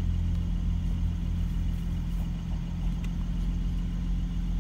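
Mercedes-AMG SLC43's twin-turbo V6 idling steadily, a low even hum heard from inside the cabin.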